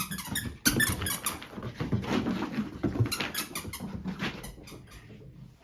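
A dog scuffling and rubbing itself against something, a quick run of squeaks and scrapes that thins out toward the end.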